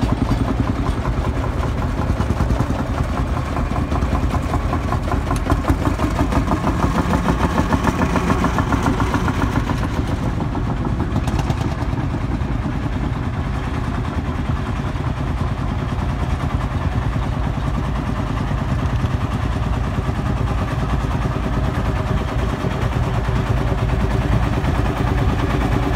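Field Marshall tractors' single-cylinder two-stroke diesel engines running at low speed, with a steady, rapid beat of single-cylinder firing as the tractors drive slowly by.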